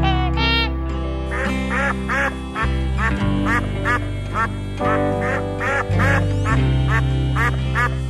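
Duck quacking in a quick run of short calls, two or three a second, over background music.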